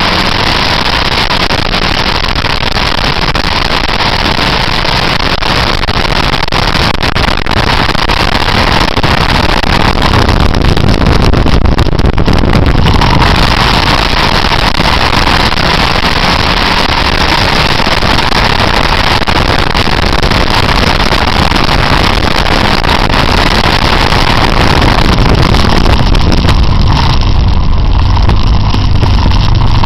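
Motorcycle being ridden at speed, its engine running under a loud, steady rush of wind noise on the onboard microphone. Twice the hiss eases for a few seconds while the low engine rumble grows.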